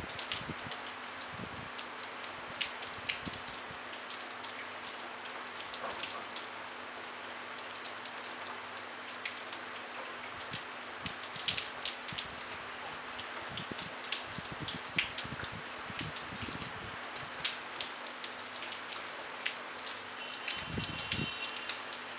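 Light rain falling steadily: an even soft hiss with scattered sharp ticks of individual drops landing close by.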